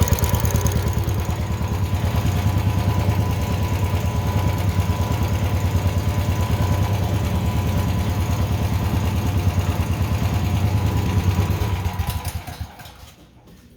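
Honda portable generator's engine idling smoothly and steadily, running well after a carburettor clean and fresh fuel, then stops about twelve seconds in.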